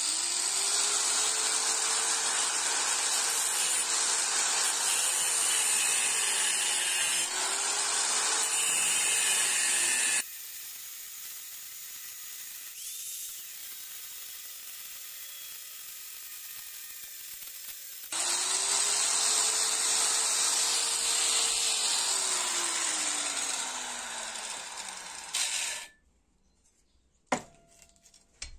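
Angle grinder with a cutting disc cutting through leaf-spring steel. The motor's pitch sags and recovers as the disc bites, and the sound goes quieter for several seconds in the middle. Near the end the motor winds down and stops, followed by two sharp metallic clinks.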